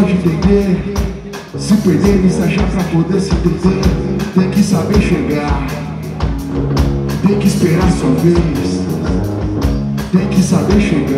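Live rock band playing with drums and guitar, and a male singer's voice coming in over the band.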